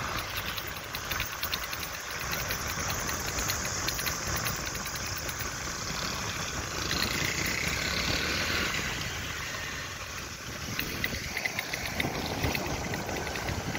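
Engine of a moving vehicle running steadily, mixed with steady road and wind noise as it travels along a wet road.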